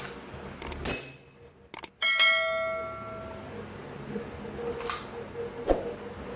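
A single loud bell-like ding about two seconds in, ringing out and fading over about a second and a half, followed by low room noise with a few faint clicks.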